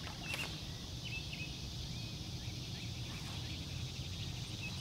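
Evening outdoor ambience: a steady insect drone, with short bird chirps scattered throughout and a low rumble underneath. One brief click comes about a third of a second in.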